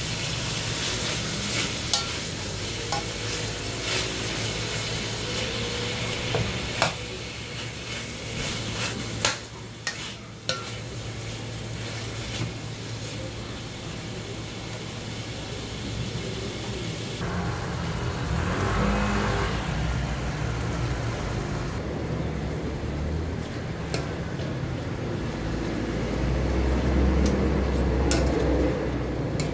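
Minced pork with onion, carrot and tomato sizzling in a stainless steel pot as a metal spoon stirs it, the spoon clinking against the pot now and then. A low rumble comes and goes in the second half, loudest near the end.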